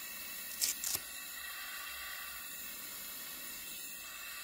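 Steady hiss of gas flowing through a Flow-Safe II+ disposable CPAP mask on a breathing patient. Two brief scratchy bursts about a second in come from the Velcro head-harness straps being fastened.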